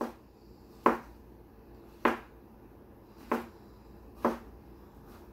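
Chef's knife slicing king oyster mushrooms on a wooden cutting board: five sharp knocks of the blade meeting the board, about one a second.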